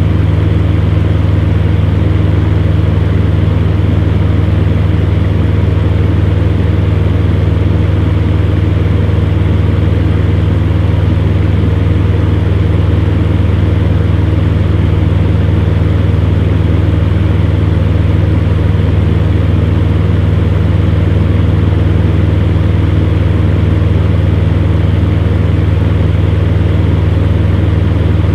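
Electric fan running steadily: a constant low motor hum with an even rush of air over it, unchanging throughout.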